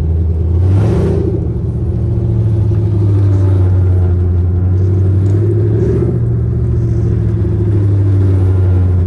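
Chevrolet Camaro SS 6.2-litre V8 driving with a loud, low, steady exhaust drone, made louder by long-tube headers. It gets louder within the first second, then holds steady.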